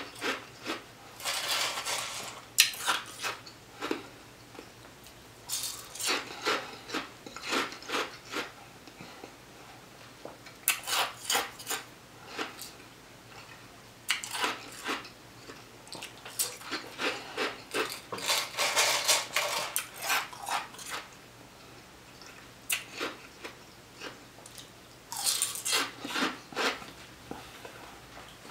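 Close-miked crunching of ice being chewed, in bursts of rapid crackles lasting a few seconds each, with short pauses between mouthfuls.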